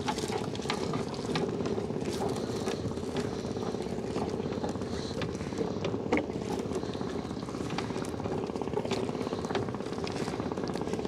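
A small engine running at a steady, even drone, with scattered light clicks and knocks over it.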